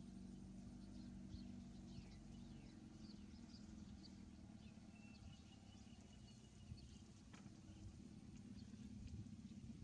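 Near silence: a faint steady low hum with scattered faint, short high chirps or squeaks.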